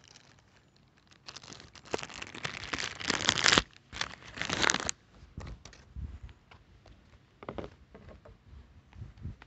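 Thin plastic shipping bag crinkling and rustling as a boxed item is worked out of it, in two loud bursts lasting a few seconds. A few lighter knocks and handling sounds follow.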